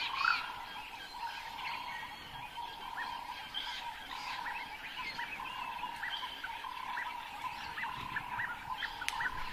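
Wildlife ambience: many short chirping calls, repeated irregularly, over a steady high-pitched drone.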